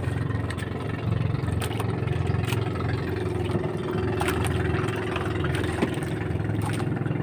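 Outrigger fishing boat's engine running steadily while trolling, a low even hum, with a few faint knocks now and then.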